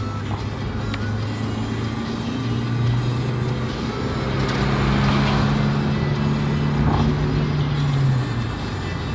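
Car driving along the road, heard from inside the cabin: a steady low engine and road hum, with a rushing noise from a passing vehicle that swells and fades in the middle.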